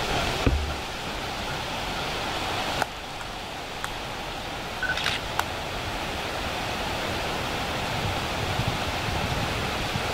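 A steady hiss with a low thump about half a second in and a few faint clicks and knocks later.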